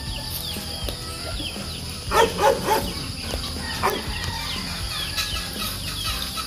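Chickens clucking, loudest in a quick run of three calls about two seconds in, over a steady high-pitched drone.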